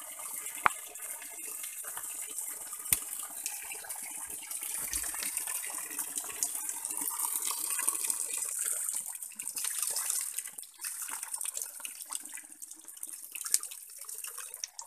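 Spring water pouring from a pipe spout and splashing onto rock, then running into and over a plastic bottle held under the stream to fill it. There are two sharp clicks in the first three seconds.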